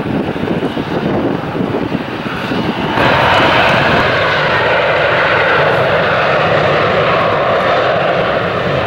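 Jet airliner engines running, at first distant and buffeted by wind on the microphone. About three seconds in the sound cuts abruptly to louder, steady engine noise with a hum in its middle.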